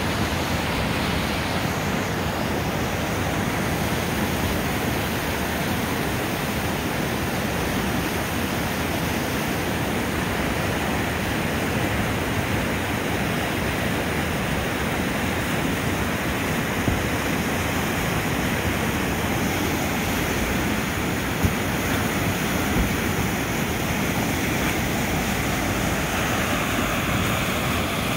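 Whitewater rapid on the Umatilla River, flowing at about 220 cfs, rushing steadily over a rocky double drop close by.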